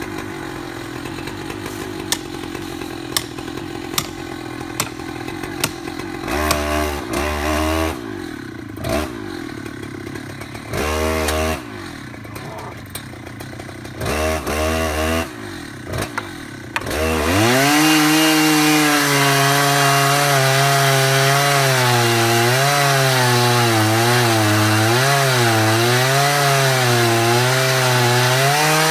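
Chainsaw: a few short revs in the first half, then from just past halfway it runs at full throttle, its pitch wavering as the chain works through wood.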